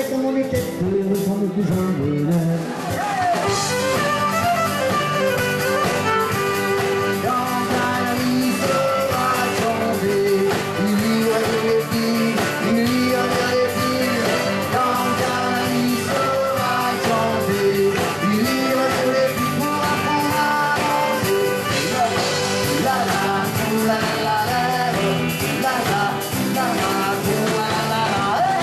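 Live band playing a rock song through a PA, with a singer over electric guitars and drums.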